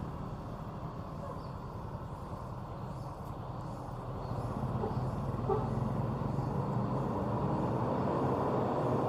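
Bus engine running, a low steady sound that grows louder from about halfway through.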